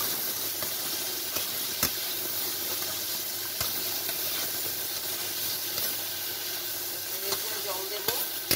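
Dried small fish and chopped vegetables sizzling in oil in a pan, turned with a wooden spatula that knocks and scrapes against the pan several times.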